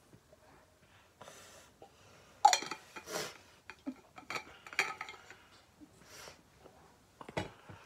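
Metal water bottles and a metal bowl being handled: scattered clinks and knocks, loudest about two and a half seconds in, with scraping as a bottle cap is screwed back on.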